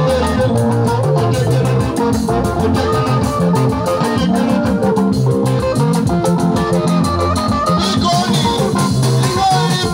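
Live band playing amplified music: electric guitars and bass guitar over hand drums and a drum kit, with a steady beat.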